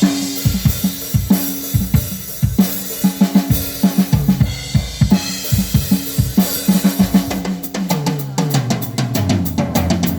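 Drum kit played live at a sound check: bass drum, snare and cymbal hits over low held notes from a bass instrument. From about eight seconds in, a quick, even cymbal pattern sets in over a moving bass line.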